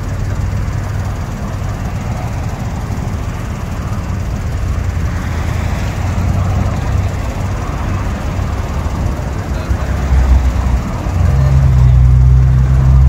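Road traffic passing on a street: cars going by over a steady low engine hum. About eleven seconds in, a deeper, louder engine hum comes in as a heavier vehicle nears.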